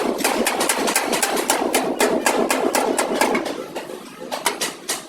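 Rapid, irregular tapping or knocking, several sharp strikes a second, over a steady rattling clatter.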